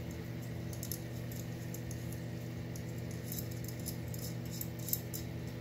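Small bolt being driven into a carbon-fibre quadcopter frame with a hex driver: scattered faint clicks and taps of metal tool, screw and frame parts, with a slightly louder click near the end, over a steady low hum.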